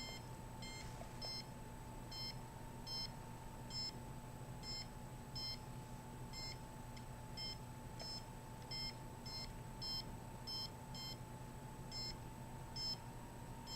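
Handheld RF/microwave radiation meter beeping: short high-pitched beeps at an uneven pace, about one to two a second, as the meter picks up signal. A faint steady hum runs underneath.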